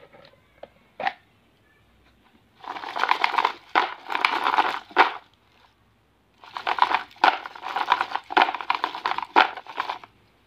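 Shiny wrapped Kulfa candies crinkling and rattling against the plastic as they are shaken in and tipped out of a plastic lunch box, in two long spells. A few light clicks of the box lid come before them.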